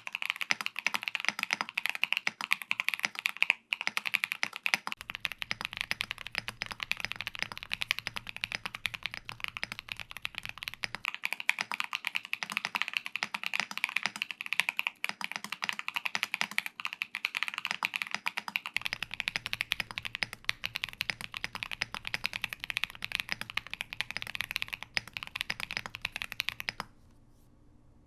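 Continuous fast typing on a mechanical keyboard with Akko Lavender Purple tactile switches and foam fitted, a dense stream of keystroke clacks that stops abruptly near the end.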